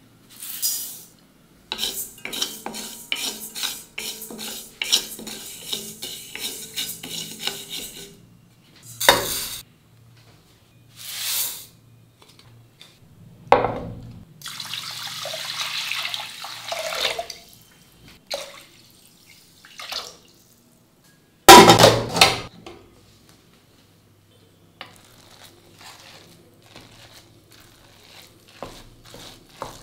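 A run of kitchen utensil sounds. First come quick clicks and scrapes of a spatula on a steel kadai as moong dal is dry-roasted. About halfway through, water swishes as raw rice and dal are washed in a pressure cooker pot. A single loud metal knock follows, and near the end a ladle scrapes softly as cooked rice and dal are mashed.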